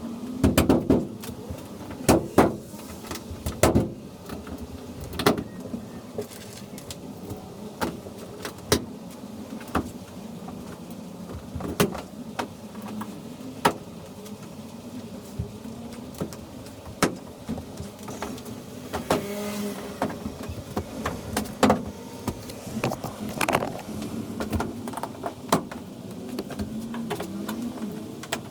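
Irregular sharp clicks and knocks of hand work on the van, over a steady low hum.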